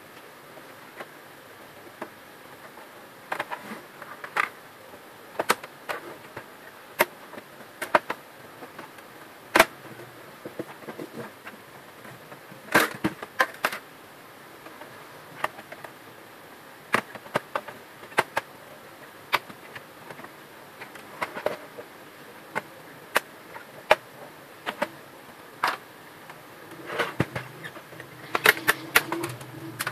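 HP LaserJet M402 laser printer running with a faint whir, broken by sharp, irregular clicks that bunch together near the end: the gear click noise of its paper pickup drive.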